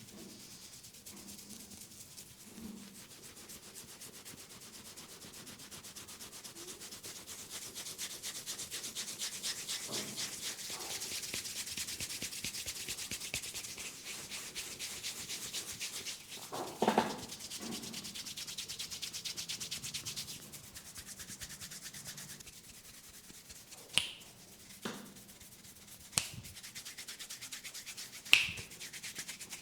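Fingers rubbing briskly over the scalp and through the hair in a head massage: a fast, steady, scratchy rubbing. There is a louder bump a little past halfway and a few sharp clicks near the end.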